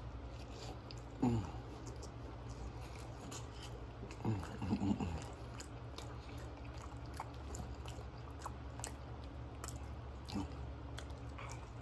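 Close-up chewing of a grilled cheese spam sandwich: wet mouth clicks and smacks over a steady low hum, with a few brief low voice-like sounds, about a second in, around the middle and near the end.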